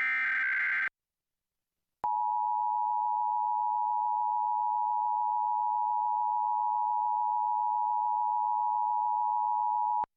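Emergency Alert System broadcast: a one-second burst of warbling digital data tones, the last of the SAME header bursts, then after about a second of silence the EAS two-tone attention signal, a steady loud beep held for about eight seconds that cuts off abruptly.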